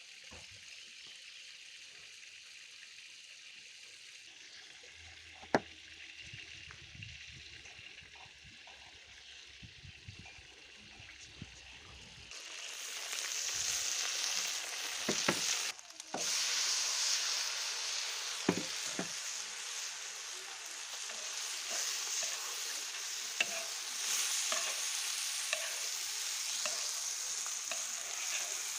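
Food frying in hot oil in a pan: a faint sizzle at first, turning to much louder sizzling a little before halfway, with occasional knocks of a stirring utensil.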